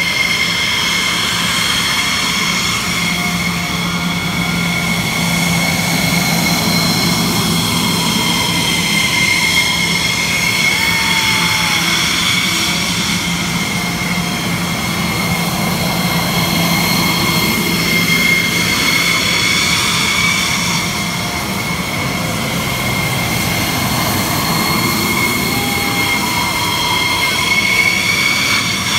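USAF Thunderbirds F-16 Fighting Falcon jets taxiing past at close range, their jet engines at taxi power giving a loud, steady high-pitched whine of several tones that drift slightly in pitch, over a low hum.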